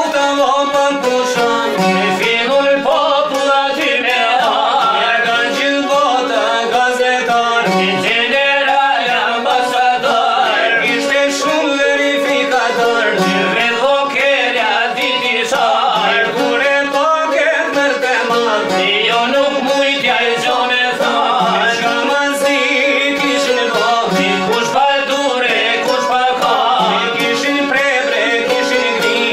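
Albanian folk song: a man singing over plucked çifteli, the two-stringed long-necked Albanian lute.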